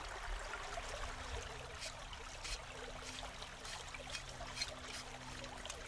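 Faint steady trickle of running water, with a low steady hum underneath and a few soft ticks.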